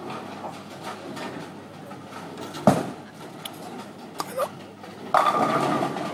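A bowling ball landing on the lane with a sharp thud about two and a half seconds in, rolling, then crashing into the pins about five seconds in with a clatter lasting around a second, over the hum of a busy bowling hall.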